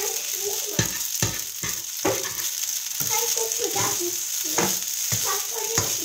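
Pasta and scrambled egg sizzling in a frying pan while a slotted spatula stirs them, knocking and scraping against the pan at an irregular pace.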